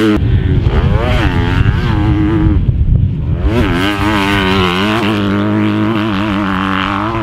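Honda CRF250R single-cylinder four-stroke motocross engine revving up and down under hard riding, its pitch rising and falling with throttle and gear changes. Near three seconds in, the throttle briefly shuts off, then the engine snaps back up in pitch.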